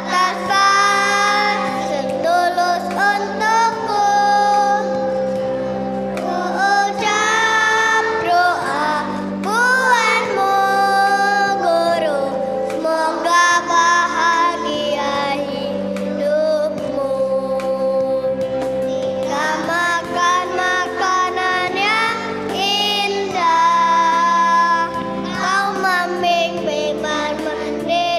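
A kindergarten children's choir singing in unison over an instrumental accompaniment.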